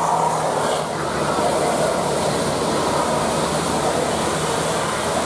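Steady road traffic noise: a large vehicle's engine and tyres running past, with no horn melody heard.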